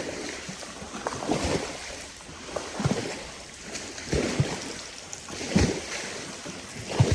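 Small waves lapping against a lakeshore, soft splashes coming every second or so over a steady hiss of water.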